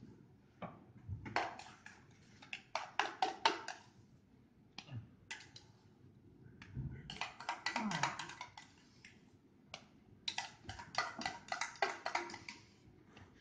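Metal spoon clicking and scraping against a metal bowl while scooping out a sticky topping, in three bursts of rapid clicks.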